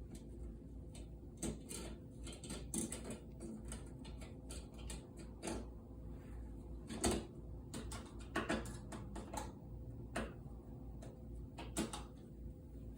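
Flathead screwdriver tightening the screws of a smoke detector's mounting bracket: scattered clicks and knocks, the sharpest about seven seconds in, over a low steady hum.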